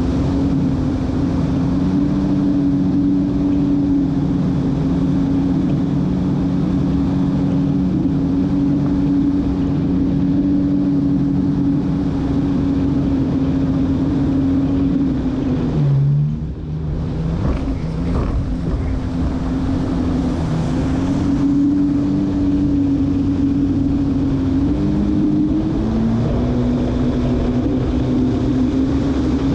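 Jet ski engine running hard at planing speed, a steady drone mixed with wind and water spray. About halfway through the note drops out briefly, then it picks back up. Near the end the pitch rises as the craft accelerates.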